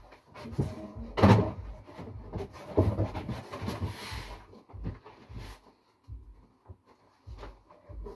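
Packing a cardboard box: irregular thumps, knocks and rustles as soft goods are pressed down into it and its cardboard flap is handled, the loudest thump a little over a second in, fewer and quieter after about five seconds.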